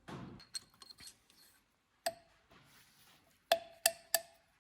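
Small steel engine parts clinking and tapping as lapped valves are handled on a cylinder head. A soft rustle comes first, then scattered light clicks, one ringing metallic clink about halfway through, and three more ringing clinks in quick succession near the end.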